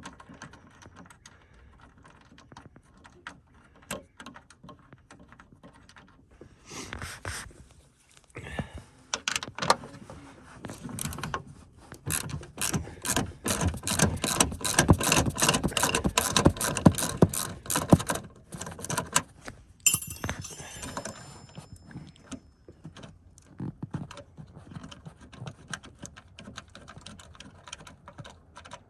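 Ratchet wrench with a 10 mm socket clicking as it backs out small mounting bolts: scattered clicks at first, then a long fast run of clicks through the middle, with a short metallic jingle about two-thirds through.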